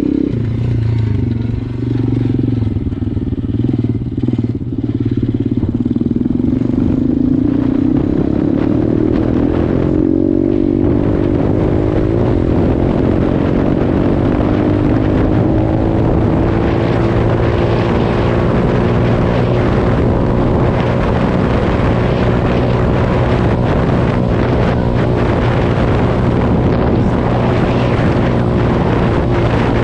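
KXD 612 Pro pit bike's four-stroke single-cylinder engine running under way: the revs drop right at the start, stay low for several seconds, then climb steadily for about eight seconds and hold at a higher steady pitch, with rushing noise growing over the second half.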